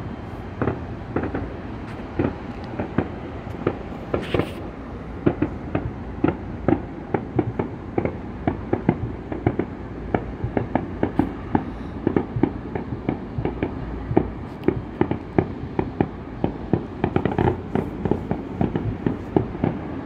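Fireworks display: a rapid string of bangs, several a second and growing denser after the first few seconds, over a steady low rumble.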